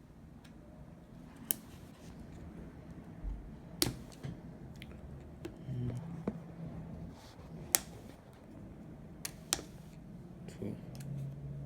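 A handful of sharp little clicks, spaced out, with two close together later on: an iPhone's flex-cable connectors being pried and snapped off the logic board.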